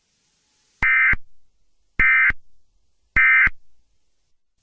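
Emergency Alert System end-of-message data signal: three short, identical bursts of harsh, buzzing electronic data tones, about a second apart, marking the end of the alert.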